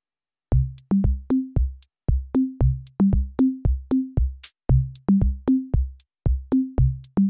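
Background music: an electronic drum-machine beat with short, punchy low notes and crisp high ticks in a steady, quick rhythm, starting about half a second in.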